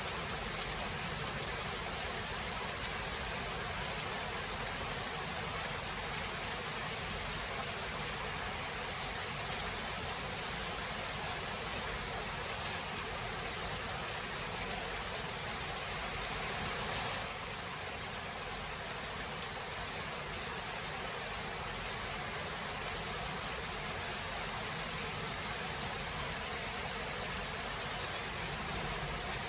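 Steady rainfall, an even hiss with no distinct thunderclap, dropping slightly in level a little past the middle.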